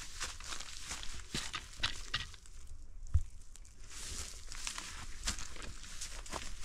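Footsteps through dry grass and brush, with irregular crackles and rustles of stems and debris underfoot and a dull thump about three seconds in.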